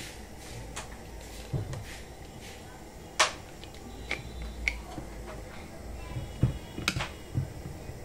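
Screwdriver prying the cut plastic cover off a washing machine control board: scattered sharp clicks and snaps of plastic, the loudest about three seconds in and another near seven seconds.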